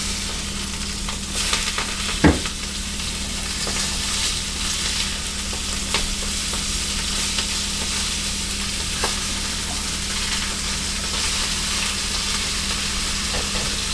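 Hamburger patties sizzling steadily in a cast iron skillet, with a few sharp clicks of a utensil against the pan, the loudest about two seconds in. A steady low hum runs underneath.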